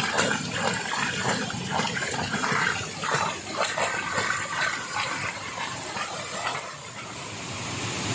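Waterfall: water pouring and splashing steadily, with irregular surges.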